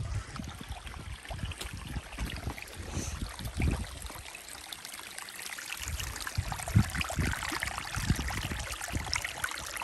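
Running water trickling steadily, with irregular low rumbles underneath.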